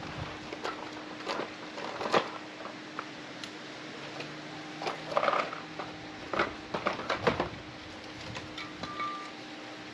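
Tools and parts being handled during motorcycle work: scattered light knocks and clicks over a steady low hum, busiest around the middle.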